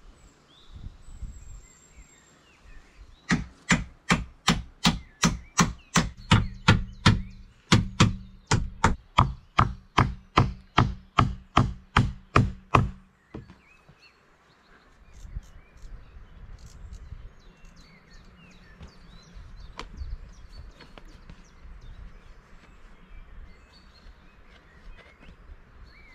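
Hammer driving nails into the wooden roof boards through the PVC roof membrane: a steady run of about two dozen sharp blows, roughly three a second, that stops about halfway through, followed by quieter rustling as the membrane is handled.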